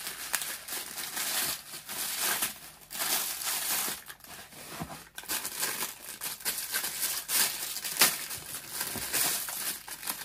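Clear plastic wrapping and a small plastic bag crinkling and rustling in irregular bursts as they are handled and pulled open by hand.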